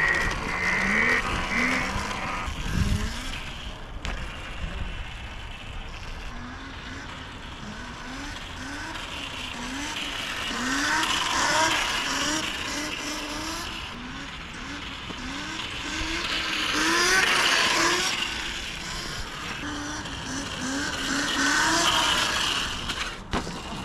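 Yozma IN10 electric dirt bike ridden about, its motor whine rising in short repeated glides, about one a second, as the throttle is pulsed. Three times the bike comes close and a louder rush of tyre and wind noise swells and fades.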